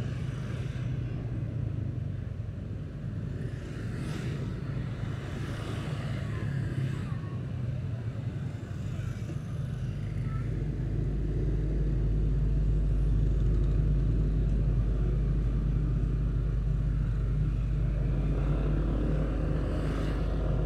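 Motorcycle running at road speed, heard from the rider's seat, with other motorbikes passing on the street. A low rumble grows louder about halfway through.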